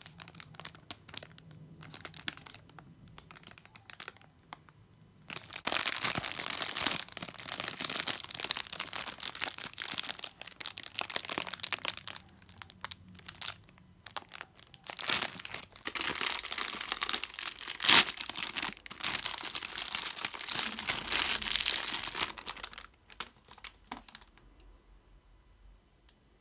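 The packaging of a Bauducco mini panettone being crinkled and torn open by hand. A few scattered crackles lead into a long stretch of dense crinkling, with one sharp, loud snap partway through, and it fades out near the end.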